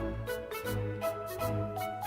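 Background music: light instrumental tune with pitched notes over a bass line and a steady beat of high ticks.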